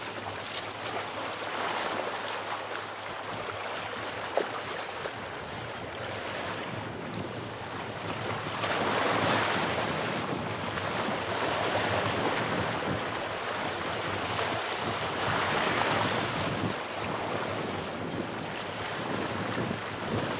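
Ocean waves washing over shoreline rocks, swelling louder about eight seconds in and again around fifteen seconds, with wind buffeting the microphone. A single brief knock about four seconds in.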